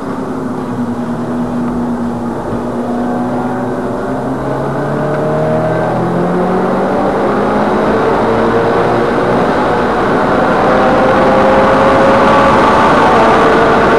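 Subaru Impreza WRX STI's turbocharged flat-four engine heard from inside the cabin, accelerating: its pitch rises steadily from about four seconds in and it grows louder toward the end, over steady tyre and road noise.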